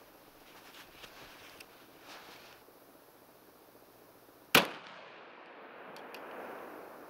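Light metallic clicks of a .45-calibre derringer being handled, then a single sharp pistol shot from it about four and a half seconds in, with a short ring-out after it; two faint clicks follow about a second and a half later.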